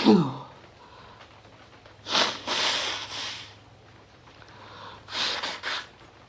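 A man in a sneezing fit: the falling tail of a sneeze right at the start, then two short runs of noisy breaths through the nose, about two seconds and five seconds in.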